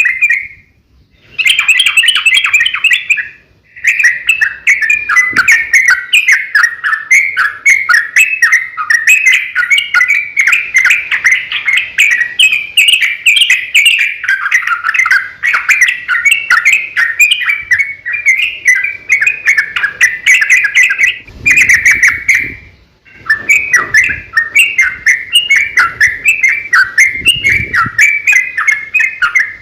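Yellow-vented bulbul singing a long, rapid run of chattering notes, broken by three short pauses.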